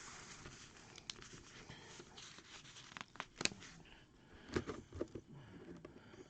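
Faint handling noises: a few scattered small clicks and rustles, the loudest just after three seconds in and a short cluster about four and a half seconds in.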